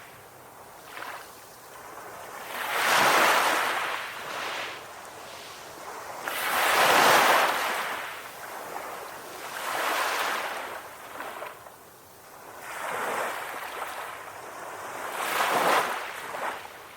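Sea waves breaking and washing onto a beach, each swell of surf rising and fading every three to four seconds, five in all, the loudest near the middle.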